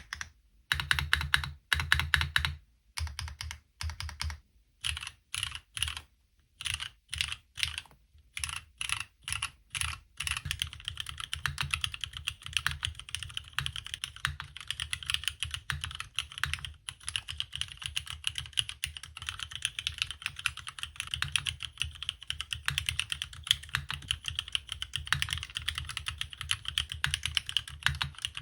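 Keystrokes on a Neo60 Cu custom mechanical keyboard in HHKB layout. For about ten seconds single keys and short runs are pressed with gaps between them. Then fast continuous typing follows, each press with a deep thock under a brighter clack.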